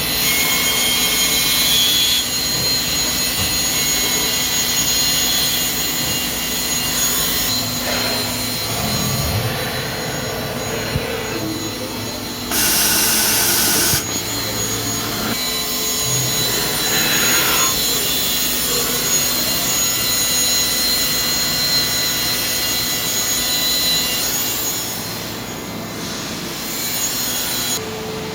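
Studer S36 Favorit CNC cylindrical grinder running, a steady mechanical whine and hiss of the grinding wheel at work. About twelve seconds in, a louder hiss comes in for about a second and a half, then stops suddenly.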